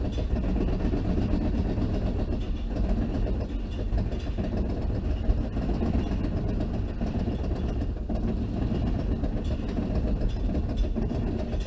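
Steel roller coaster train climbing its chain lift hill: a steady low mechanical rumble from the lift chain and the cars on the track.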